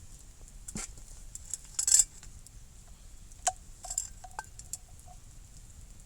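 Metal cookware and utensils being handled: a handful of sharp clinks and knocks, the loudest about two seconds in, several leaving a short metallic ring.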